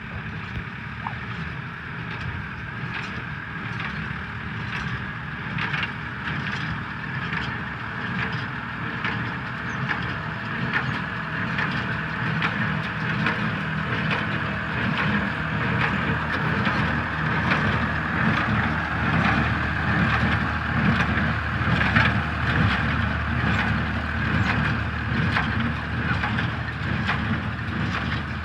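Hay bale elevator running steadily, its chain conveyor clattering with many irregular clicks and knocks as square bales ride up it; slightly louder in the second half.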